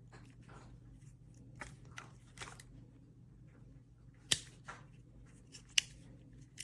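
Victorinox Hiker Swiss Army knife being handled: soft rustles and light clicks, with two sharp clicks about four and a half and six seconds in.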